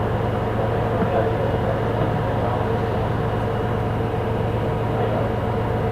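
Volvo B290R city bus with a Voith automatic gearbox, its engine running steadily with a constant hum and no change in pitch.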